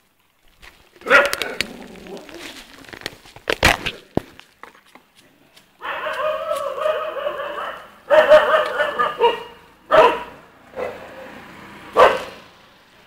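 Stray puppies yelping and barking in several short outbursts, with one longer pitched cry about six seconds in.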